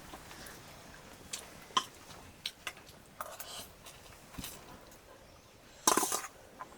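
Scattered light clinks and clicks of spoons against dishes and bowls during a meal of hot noodles, with a louder brief clatter about six seconds in.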